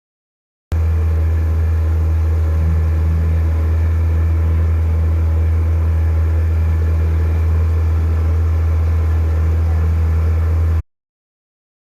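Boat engine running steadily at a constant speed, a loud, even low hum that starts and cuts off abruptly.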